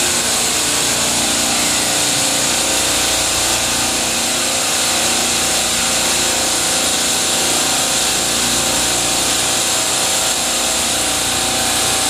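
Parallel rack of refrigeration compressors running steadily: a constant hum with a few steady tones under a strong, even high-pitched hiss.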